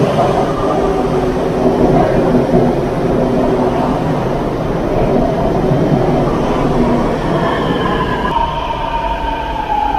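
Istanbul M4 line metro train running into an underground station and braking: a steady rumble of wheels and motors, with a falling whine setting in about three-quarters through as it slows toward a stop.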